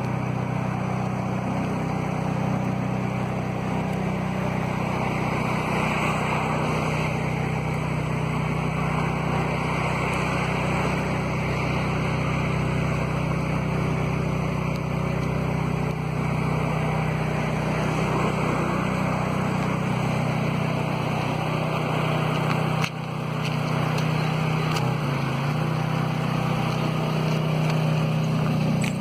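Volkswagen Parati car engine running steadily with a low, even hum, dipping briefly about 23 seconds in.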